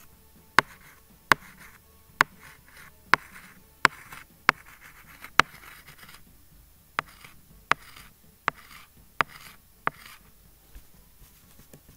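Stylus writing on a tablet screen: a sharp tap each time the pen tip meets the surface, about a dozen in all, with light scratching as it drags between taps and a short pause about halfway through.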